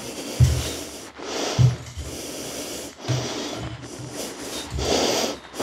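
Parallette bar tubes being pushed and twisted into their fittings, rubbing and scraping in about five strokes with a low grinding growl, where the tight, grippy fit resists sliding.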